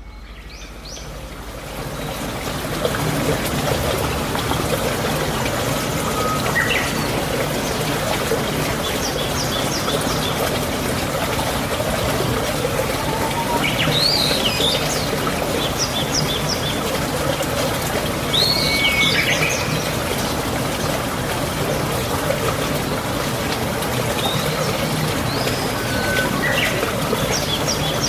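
Birds chirping and calling in short bursts every few seconds over a steady rush of running water, which fades in over the first few seconds.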